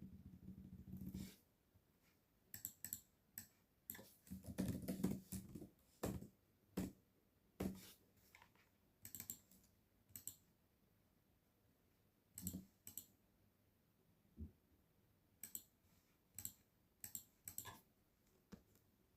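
Computer keyboard keys being typed and a mouse clicking, in irregular short runs and single clicks with pauses between. There is a fast rattling run at the start and a denser run of keystrokes about four to five seconds in.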